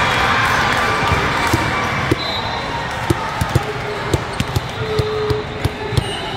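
Volleyballs being struck and bouncing on the hard floor of a large hall with many courts: irregular sharp smacks, several per second at times, over a steady background of crowd chatter.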